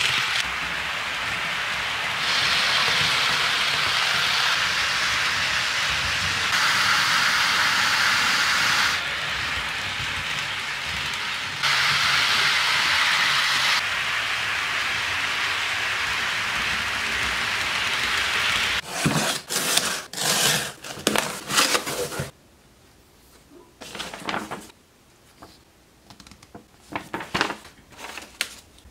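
HO scale model trains rolling along sectional track, a steady running noise of wheels and motors that jumps in level at each change of shot. From about two-thirds of the way in, crinkly kraft packing paper and cardboard are handled as a shipping box is opened, in short bursts with quieter gaps.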